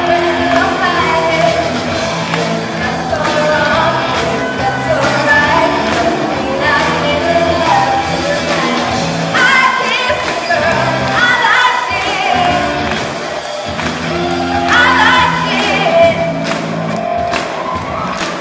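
Live band music played through a hall's sound system: a lead vocalist with many voices singing along over guitar and held bass notes.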